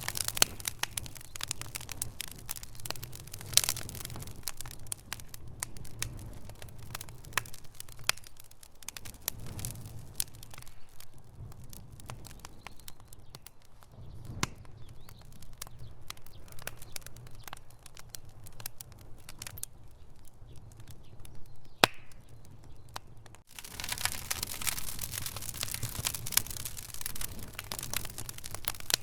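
Wood fire burning in a fireplace, crackling and popping steadily over a low rumble, with a couple of sharper, louder pops. About three-quarters of the way through, the crackling suddenly becomes denser and louder.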